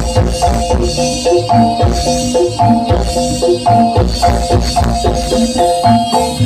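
Live jaranan music from a gamelan ensemble, amplified through a sound system: metallophones play a repeating melody of short ringing notes over steady drum and gong strokes.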